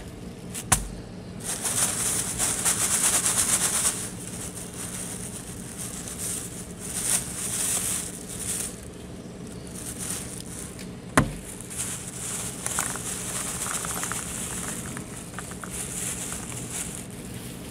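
Thin plastic bag crinkling and rustling as it is handled and light puffed snack pieces are tipped out of it onto a plastic tray. Two sharp knocks, about a second in and again near the middle, are the loudest sounds.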